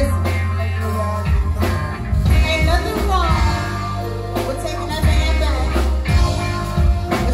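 Live soul band playing, with bass, drums, keyboards and electric guitar under sung vocals.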